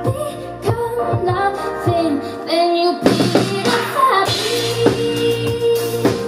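Live pop song: a woman singing into a microphone over backing music with a regular kick drum. About halfway through the low end drops out briefly, then the music comes back in with a long held note.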